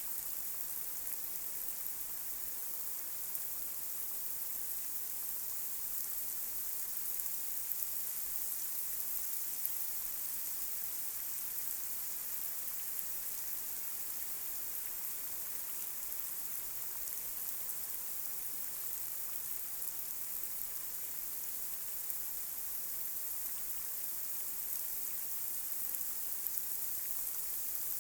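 Light rain falling on a street: a steady hiss with many small drop ticks.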